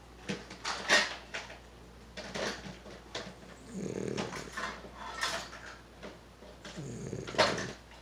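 Black pug snoring in its sleep: two longer low snores about four and seven seconds in, with short, sharp noisy breaths in between. The loudest breaths come about a second in and just before the end.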